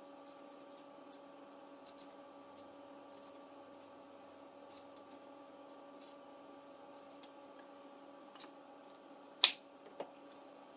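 Felt-tip marker scratching faintly on paper as a small picture is coloured in, with a few light clicks and one sharp click near the end, over a steady hum.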